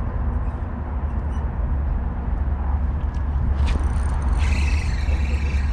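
A steady low rumble, with the whir of a spinning reel being cranked from about four seconds in as a hooked largemouth bass is reeled toward the boat.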